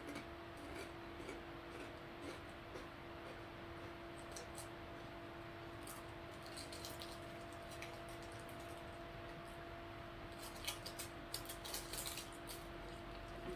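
Faint small clicks and crackles from a cookie being handled and eaten, coming thicker in a cluster near the end, over a steady low electrical hum.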